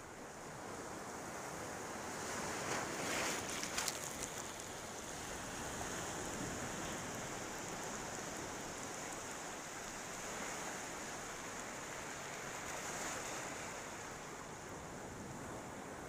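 Ocean surf washing onto a sandy beach: a steady hiss of small waves that swells as a wave breaks about three seconds in and again near the thirteen-second mark.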